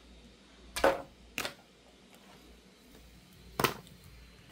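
Three short knocks and clicks, about a second in, half a second later, and again near the end, as a plastic jointed toy figure is handled and set down on a wooden floor.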